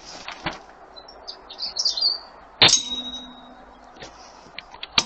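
An air rifle shot and its pellet striking a metal reactive target, a single sharp clang that rings on for about a second. A bird chirps briefly before it.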